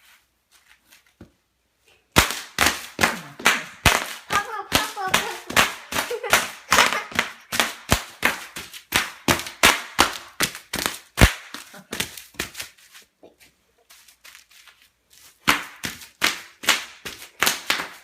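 Bubble wrap popping under jumping feet: rapid sharp pops, several a second. They start about two seconds in, thin out around thirteen seconds and pick up again near the end.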